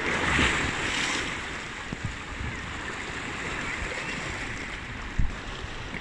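Seawater surging into a narrow rock gully: a wave rushes and foams through in the first second or so, then settles into a steady wash of water. A short low bump sounds about five seconds in.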